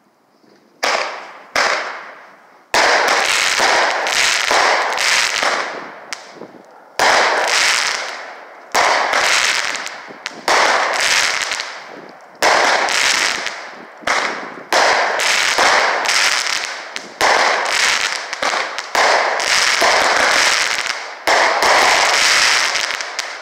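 Phantom Rain of Fire 16-shot, 200-gram firework cake firing: a string of sharp bangs about every one to two seconds from about a second in, each followed by crackling that fades over a second or two, from the crackling red-rain effect of its red palm bursts.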